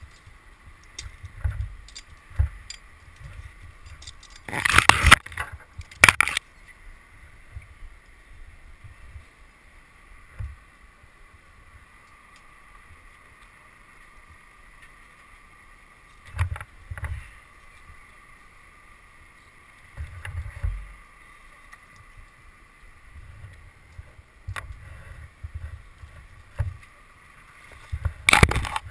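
Wind buffeting and handling knocks on a head-mounted camera, with two loud brief bursts of noise about five and six seconds in and another near the end. A faint steady whine runs underneath.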